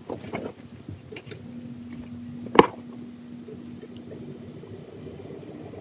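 Body lotion being squeezed out and rubbed into skin, soft squishy sounds, with one sharp click about two and a half seconds in.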